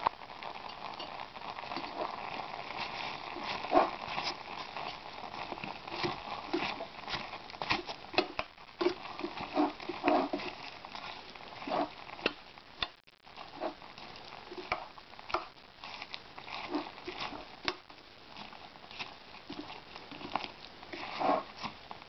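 Spoon stirring chopped apple and plum with grain in a stainless-steel pot: soft wet shuffling of the fruit with irregular clinks and scrapes of metal on the pot.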